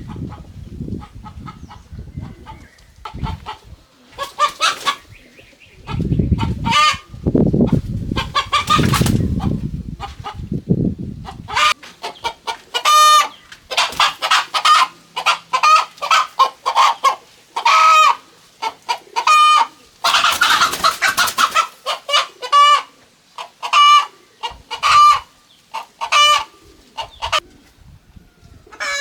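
Chickens clucking, with many short calls in a row that grow thicker and more regular from about halfway in. A low rumble lies under the first half.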